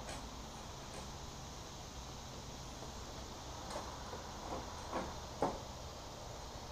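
Light clicks and knocks of a Jeep headlight's retaining ring and small screws being handled: a few sharp clicks, bunched between about four and five and a half seconds in, the last the loudest, over a low steady hum.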